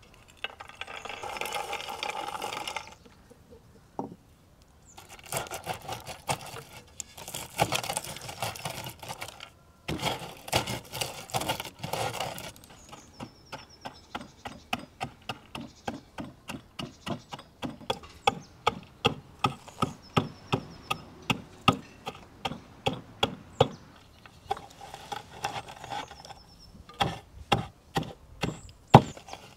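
Walnuts being crushed with a hand-held stone in a terracotta bowl: crunching at first, then a long run of sharp knocks at about two to three a second. Quieter rustling of fresh herbs being cleaned comes near the end.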